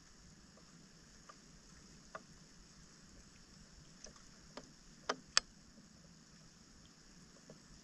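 Hands sloshing and scooping in shallow standing floodwater while clearing debris from a clogged roadside drain, with a few sharp clicks, the loudest about five seconds in.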